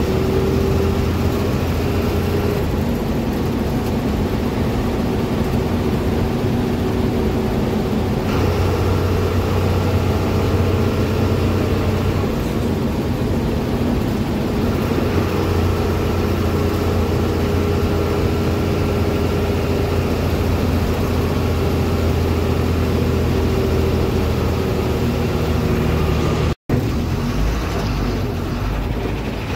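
A moving bus from inside the cabin: steady engine and road drone with engine tones shifting slightly in pitch. The sound cuts out for an instant near the end.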